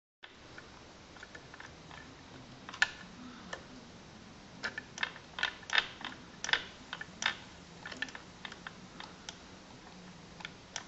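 Irregular light clicks and taps of metal parts as the idler gear of a classic Mini A-series engine is pushed and pulled against its housing to measure its end float with a dial indicator.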